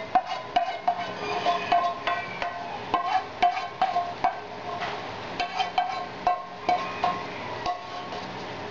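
Wooden spoon scraping and knocking against a frying pan while thick gravy is scraped out, giving a string of short, irregular knocks, each with a brief ringing tone from the pan.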